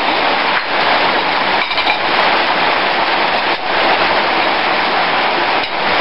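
Heavy rain pouring down, a loud steady hiss, with a few faint clicks.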